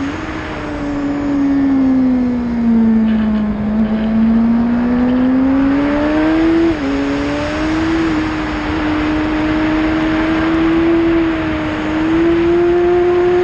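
Suzuki GSX-R600 inline-four engine running hard, heard from onboard with wind rushing over the microphone. The engine pitch sags over the first few seconds, climbs again, drops briefly about seven seconds in, then holds steady and rises slightly near the end.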